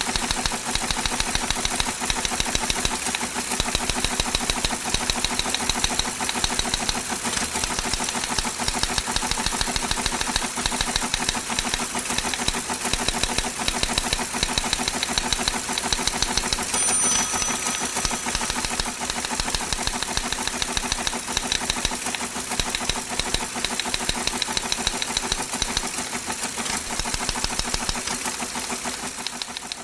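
Electromechanical office printer clattering in a fast, steady run of print strikes, with a brief high ping a little past halfway and a fade-out at the end.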